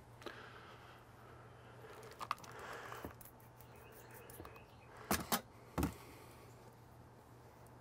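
Trigger spray bottle of cleaner squirted three times in quick succession, a little past the middle; before it, a few light clicks and some cloth rustling.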